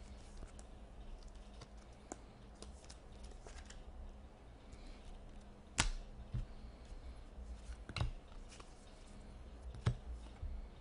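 Hockey trading cards being handled and set down on stacks on a desk: faint rustling with a few sharp taps, the loudest about six seconds in. A low steady hum runs underneath.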